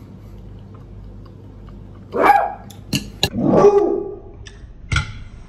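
A pet dog barking loudly several times, starting about two seconds in, with sudden sharp barks loud enough to startle.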